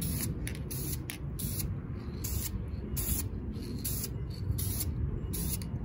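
Aerosol spray-paint can hissing in short bursts, about two a second, as yellow caliper paint goes on in a light first coat, over a steady low rumble.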